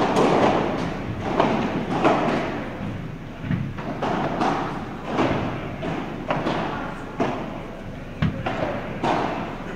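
Padel balls struck by rackets and bouncing, a run of echoing thuds roughly once a second through a large indoor hall.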